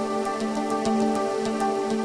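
Soft background music: held, sustained chords with light ticks about four times a second.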